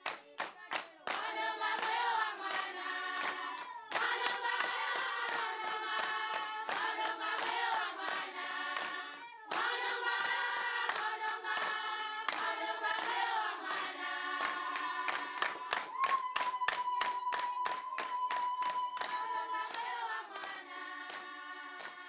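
A choir singing to steady hand clapping, about three claps a second. The clapping starts alone and the voices come in about a second later; near the end one long note is held.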